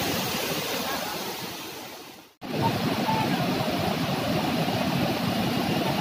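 Waterfall rushing: a steady noise of falling water. It fades out about two seconds in, breaks off for a moment, then comes straight back at an even level.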